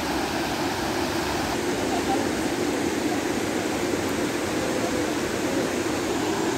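Steady rush of a rocky river flowing over stones.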